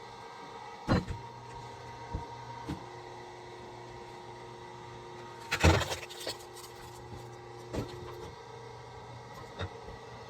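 Firewood being split with an axe: a few light knocks, then one loud, sharp crack a little past halfway, all over a steady faint hum.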